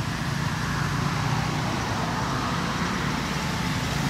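Steady rumble of road traffic, with vehicle engines running and no distinct events.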